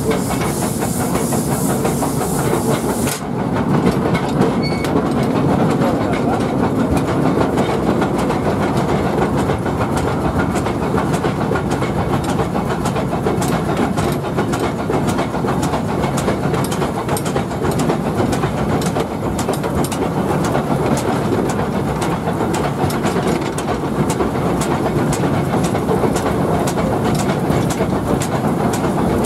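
Bundaberg Fowler 0-6-2T narrow-gauge steam locomotive running, heard from its cab: a steady mechanical running noise with the rattle and clicking of wheels over the rails. A high hiss carries through the first three seconds, then stops.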